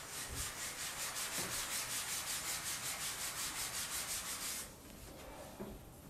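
Fast back-and-forth rubbing, about seven even strokes a second, stopping a little before five seconds in.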